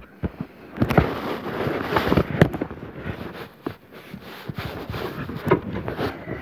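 Handling noise on a phone's microphone: fabric rustling and rubbing, with a rapid run of knocks and bumps as the phone moves against clothing.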